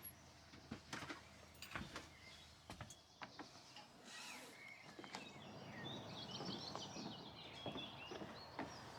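Faint outdoor ambience with scattered light clicks and knocks, then birds chirping in quick high twitters through the second half.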